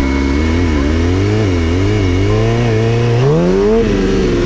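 Stunt motorcycle engine running at low revs, its pitch wavering up and down with constant small throttle changes, then revving up sharply about three seconds in and dropping back.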